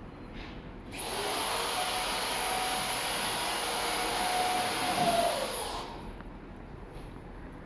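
A high-speed electric motor switched on, running with a loud hiss and a high whine for about five seconds, then winding down with its pitch falling.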